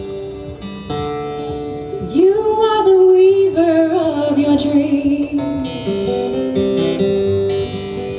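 Kirtan chanting: acoustic guitar playing held chords, with a single voice singing a mantra line from about two seconds in that wavers and steps down in pitch before the guitar carries on alone.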